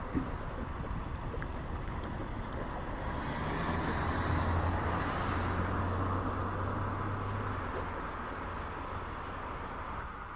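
A car driving past on the road, its engine and tyre noise growing louder over a few seconds with a low hum, then fading away.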